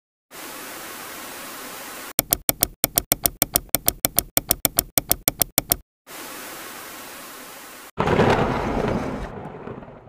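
Intro sound effects: TV static hiss, cut by a run of rapid, evenly spaced clicks at about five a second, then static again, and a loud rushing swell near the end that fades away.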